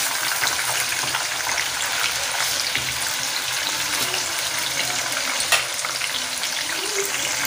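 Marinated chicken pieces frying in hot oil over a high flame, the oil sizzling steadily with fine crackles, while a perforated slotted spoon turns them in the pan. One sharper knock about five and a half seconds in.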